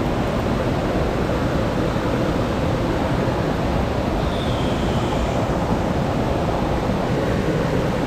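Mountain stream water rushing, a steady, even noise with no breaks.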